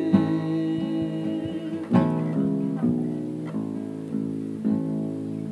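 Acoustic guitar playing chords, each left to ring, with a few fresh strums through the passage: an instrumental stretch between the sung lines of a song.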